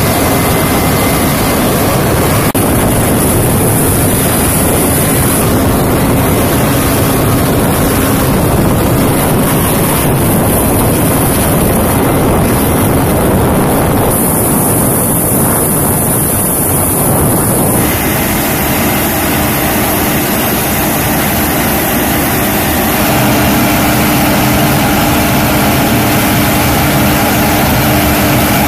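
Steady jet turbine noise from aircraft on an airfield ramp, with a high thin whine above the rush. The sound shifts abruptly a few times.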